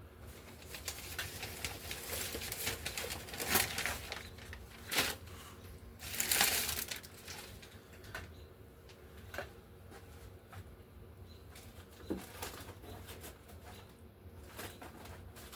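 Scratchy rubbing strokes of paint being spread and worked onto a board-book page. The strokes are densest in the first half and loudest about six to seven seconds in, then become sparse and light.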